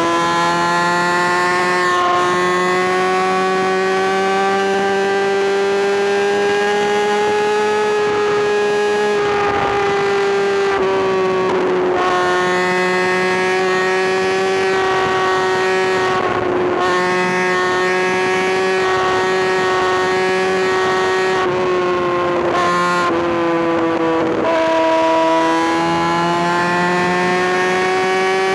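Kawasaki ZX-6R inline-four engine running at high, fairly steady revs, its pitch drifting slowly up and down. A few brief sweeping noises pass over it.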